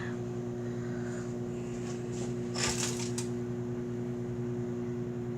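Microwave oven running with a steady hum while heating a slime mixture. A brief rustling clatter comes about two and a half seconds in.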